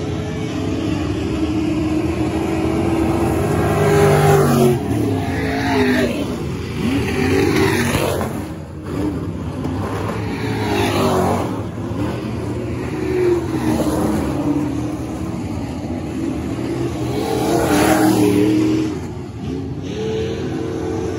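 Several dirt-track stock cars running laps on a clay oval, their engines revving and swelling as they pass and fading as they go round. The loudest passes come about four seconds in and again near eighteen seconds.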